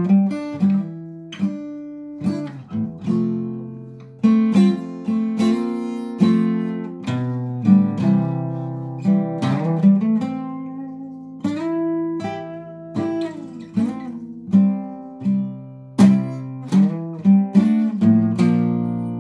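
Solo acoustic guitar playing an instrumental piece: picked notes and chords struck one after another, each left to ring and fade.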